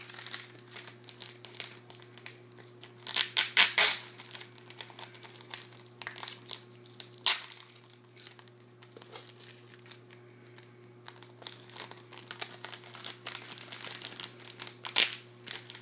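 Packaging crinkling and rustling as it is handled by hand, with louder crackles about three to four seconds in, around seven seconds, and near the end, over a steady low hum.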